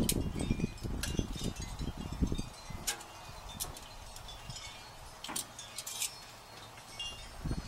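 Metal barbecue tongs clicking and clinking against a gas grill's grate and a glass baking dish as chicken drumsticks are laid on the grill. There are several sharp, briefly ringing clinks, spread out.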